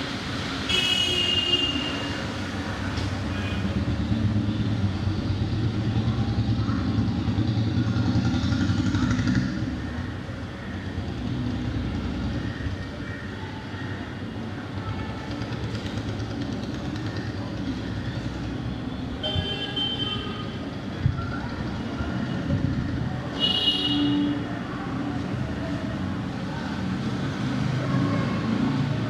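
Busy street traffic rumbling steadily on a wet road, with vehicle horns honking three times: once about a second in, then twice close together past the middle.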